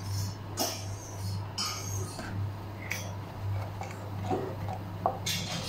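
Blended tomato sauce boiling in a pan, bubbling with scattered crackles and pops over a steady low hum. A wooden spoon stirs it in the second half, with a sharp knock about five seconds in.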